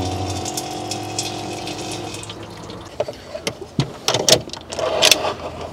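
A small rechargeable water pump running with a steady whir, water running into a mini sink. The pump stops about two seconds in, followed by a few light knocks and taps.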